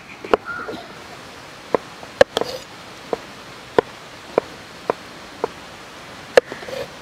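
Kitchen knife chopping ripe muskmelon on a wooden cutting board: sharp knocks of the blade hitting the board, roughly one every half second, over a steady hiss.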